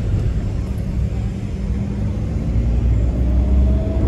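Car cabin noise while driving in city traffic: a steady low rumble of engine and tyres with a constant hum. A faint whine rises slowly near the end.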